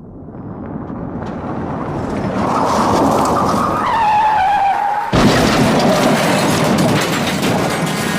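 Car crash sound effect. A car's noise builds and its tyres squeal for a couple of seconds, then about five seconds in comes a sudden loud impact, followed by continuing dense crashing and clattering of the wreck.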